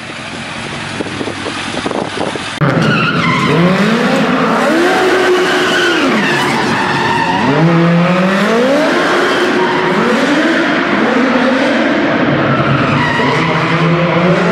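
Smart car fitted with a Suzuki Hayabusa GSX1300R inline-four motorcycle engine, revving hard and dropping back again and again, its pitch rising and falling several times, with tyres squealing. For the first two and a half seconds, before a sudden jump in level, there is only a steady rushing noise that grows louder.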